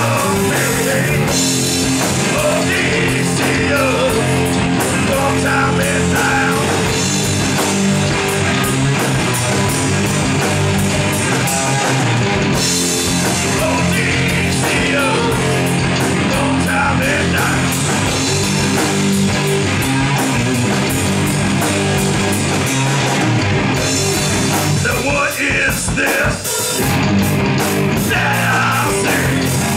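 Heavy rock band playing live through a bar's PA: distorted electric guitar, electric bass and a drum kit, steady and loud throughout.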